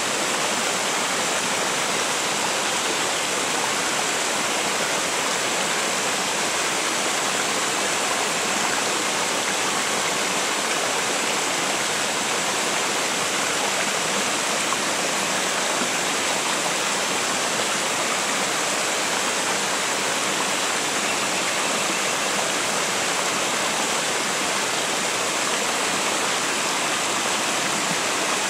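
A small river pouring over a low weir and across rock shelves, making a steady rushing of falling and flowing water with no breaks.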